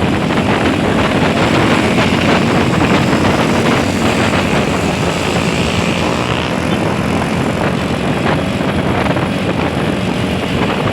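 Steady, loud engine and road noise of a moving intercity bus, with no horn melody heard.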